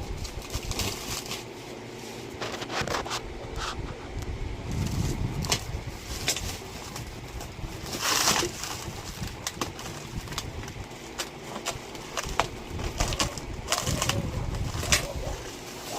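Packaging being handled and opened: irregular rustling and crinkling with many short sharp clicks, and a couple of low thumps.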